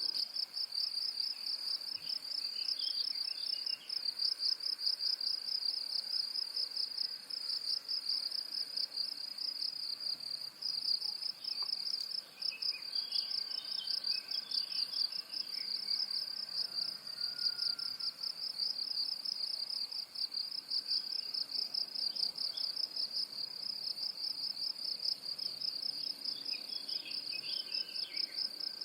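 Insects trilling in a steady, rapidly pulsing high chorus, with faint bird chirps breaking in a few times.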